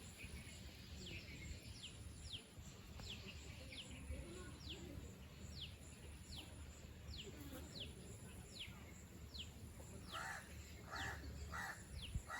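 A songbird repeating a short, high, falling whistled note about twice a second, over a faint steady low rumble of wind. Near the end a bird gives three harsher calls.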